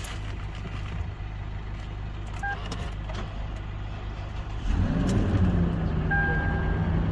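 Lexus LX570's 5.7-litre V8 starting about two-thirds of the way in: it catches, its pitch flares up briefly, then it settles into a steady idle. The repaired starter with its new solenoid switch now turns the engine over. A repeated beeping chime sounds from the car near the end.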